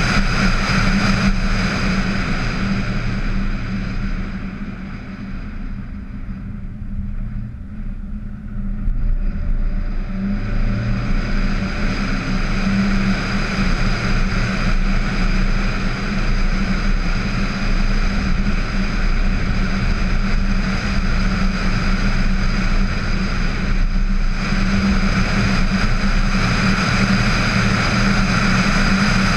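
A VW Tiguan driving, heard from a camera suction-mounted on its hood: steady wind, tyre and engine noise. It drops off for several seconds a few seconds in, then comes back up and holds steady.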